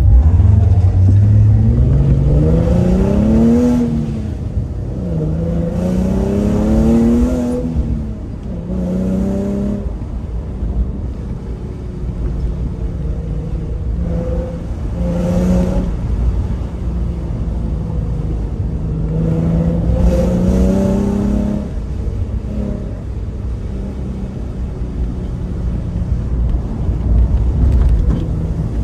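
Car engine pulling hard through the gears: its pitch climbs, falls back at a shift about four seconds in and climbs again, then comes in shorter pulls with steady cruising between. Heard from inside a car's cabin.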